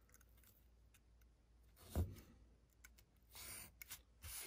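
Faint handling sounds of a hobby knife trimming transfer tape on a cutting mat: a single soft knock about two seconds in, then brief scratchy rustles near the end.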